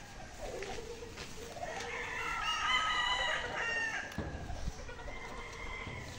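Gamefowl rooster crowing once, one long crow about two seconds in.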